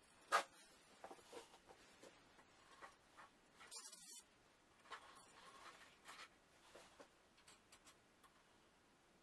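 Faint, irregular clicks and taps of threaded rod and nuts being handled and fitted to clamp oak boards together. One sharper click comes about half a second in, and a brief rustle about four seconds in.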